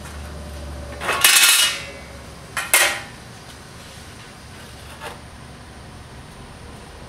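Pieces of 16-gauge cold-rolled steel sheet clattering and scraping against a steel fabrication table. There are two loud clatters, the first about a second in and lasting around half a second, the second about two and a half seconds in. A lighter knock follows near the five-second mark.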